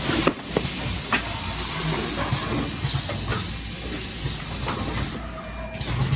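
Automatic pouch packaging machinery running, the carton case form-fill-seal machine of a wet cat food cartoning line: a steady mechanical hum with irregular clicks and knocks and a hiss that drops out briefly near the end.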